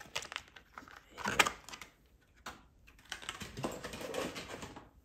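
Plastic packaging of soft-plastic fishing lures being worked open by hand: irregular clicks and crinkling rustles, with a louder burst about a second and a half in.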